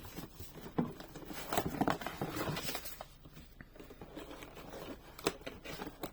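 Cardboard and plastic toy packaging being handled and pried at along its perforation: scattered rustles, scrapes and light clicks, with one sharper tap about five seconds in.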